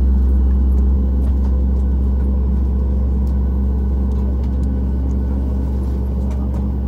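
Jet airliner's engines running at idle as it taxis, heard inside the cabin as a steady low drone with a faint hum on top.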